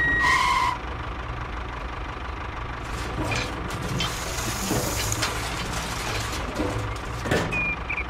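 Heavy truck engine running steadily, with a short electronic beep in the first moment and a hiss of air or sliding sand around the middle.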